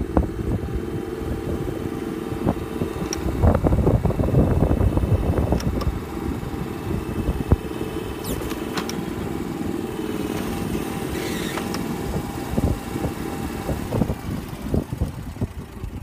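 Vehicle engine running steadily as it drives along a snow-covered road, with a low hum and a few scattered clicks and knocks.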